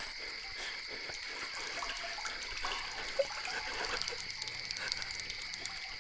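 Quiet background soundtrack: two steady high-pitched tones over faint crackling and scattered light ticks.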